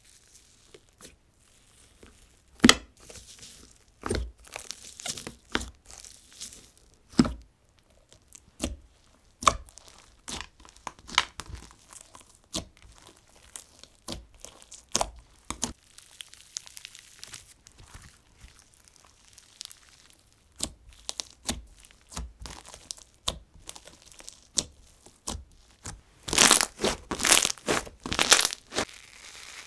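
Green slime with an icy, slushy top and bingsu beads in a clear base, poked and kneaded by hand: irregular crackles, pops and crunches. A quick, louder run of crackles comes near the end.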